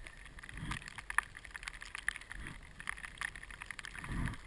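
Powder snow hissing and crackling under a rider sliding downhill, with many small irregular clicks and a few soft low whooshes.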